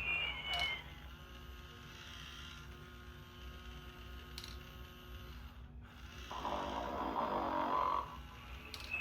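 Tyco Sing & Snore Ernie toy snoring through its speaker. A warbling two-note whistle at the start, then a long steady hum, then a noisy snore about six seconds in, and the whistle again at the end.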